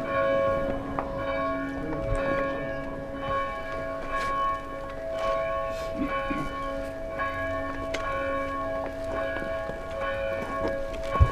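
Church bells tolling: several bells at different pitches, each struck again and again, their long ringing tones overlapping.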